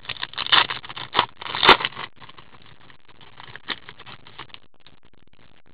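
A hockey card pack wrapper being torn open and crinkled by hand. The crackling is densest in the first two seconds, with the loudest crackle just before two seconds in, then fainter rustling as the cards come out of the wrapper.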